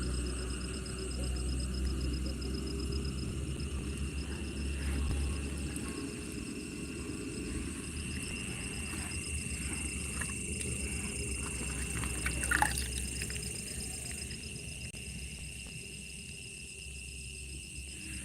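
Insects trilling steadily at a high pitch over low rumbling noise and faint water sounds, with one sharp knock about twelve and a half seconds in.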